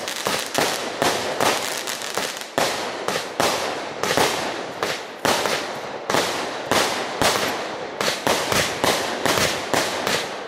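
Fireworks display going off overhead: an uneven run of sharp bangs, two or three a second, each trailing off briefly.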